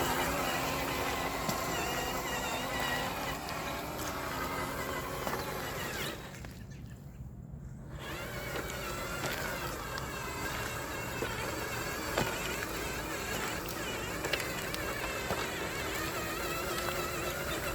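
Scale RC truck driving over gravel: the electric motor and gearbox whine, rising and falling in pitch with the throttle, over tyre and gravel noise. The whine stops briefly about six seconds in, then picks up again.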